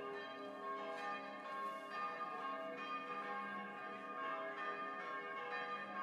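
Bells ringing, many strikes overlapping into a continuous peal.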